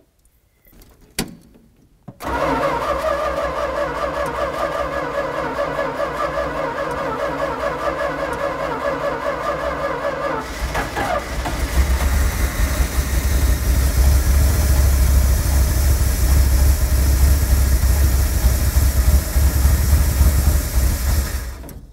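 The 318 V8 of a 1965 Dodge A-100 is cranked by the starter for about eight seconds with fuel poured down the carburetor throat. It then catches and runs for about ten seconds with a deeper, louder rumble before cutting out abruptly near the end. This is a primed first start after 22 years of sitting.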